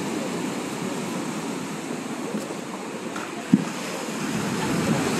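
Muddy sea waves breaking and washing against a concrete seawall, a steady churning surf. A single sharp knock sounds about three and a half seconds in.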